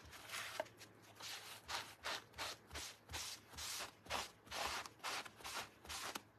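A paint-loaded sponge rubbed back and forth over a flat wooden cutout, giving quick scratchy swishes at about three strokes a second.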